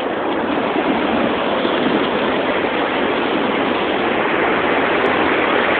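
Heavy ocean surf breaking on the beach, a steady rush of water that grows slightly louder; the big 5-to-6-foot waves are driven by a hurricane swell.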